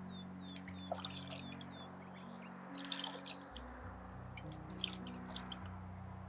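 Water dripping and trickling from wet hair into a glass bowl of water as the hair is rinsed and squeezed out by hand, with scattered small splashes.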